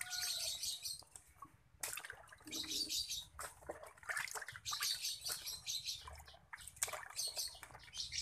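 Water splashing and sloshing in a plastic tub as hands wash catfish, in irregular bursts with a few sharper splashes.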